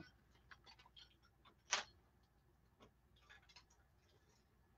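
Near silence with a few faint, light clicks and ticks scattered through it, one slightly louder about a second and three-quarters in.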